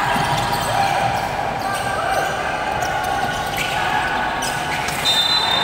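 Basketball game in an echoing gym: the ball bouncing on the hardwood court, short sneaker squeaks and players' and bench voices. A high steady whistle starts about five seconds in, the referee stopping play.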